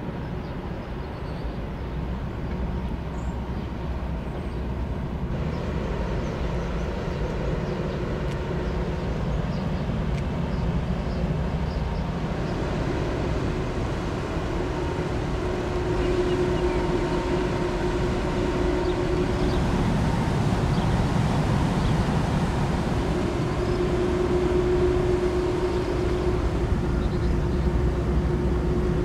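Steady low rumble of ship engines with a droning hum, growing louder in the second half.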